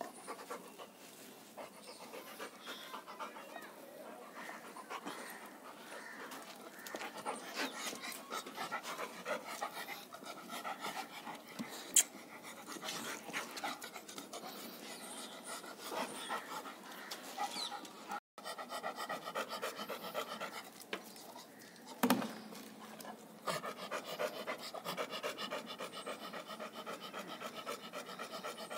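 A black Labrador panting: a steady run of quick, short breaths.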